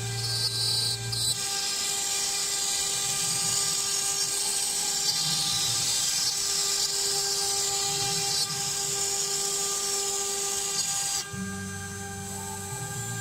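CNC router spindle whining steadily while the bit cuts sign material, a loud hiss of cutting from about a second in until near the end. A low hum takes over while the cutting noise stops, at the start and again near the end.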